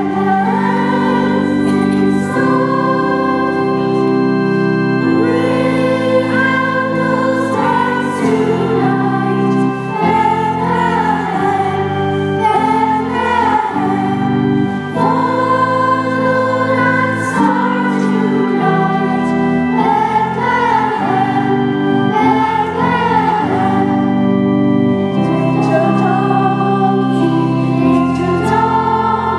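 Children's choir singing together over held instrumental chords that change every second or two.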